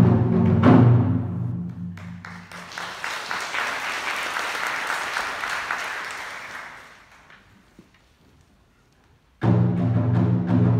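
A wind orchestra with drums plays loudly and breaks off about a second in. Audience applause swells and then dies away to near silence. About nine and a half seconds in, the band and drums come back in abruptly at full volume.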